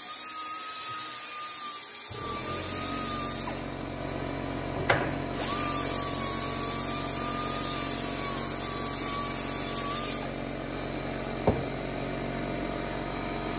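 Pneumatic die grinder grinding the burrs off the steel rails of a 20-inch Stihl chainsaw bar: a high air hiss with a steady whine, in two runs, the first stopping about three and a half seconds in and the second running from about five to ten seconds. From about two seconds in, an air compressor runs underneath with a low steady hum.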